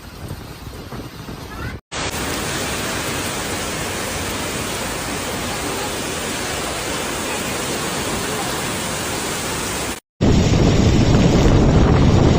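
Typhoon storm noise: a steady rush of heavy wind-driven rain, in separate clips broken by two short cuts. After the second cut, near the end, louder wind buffets the microphone.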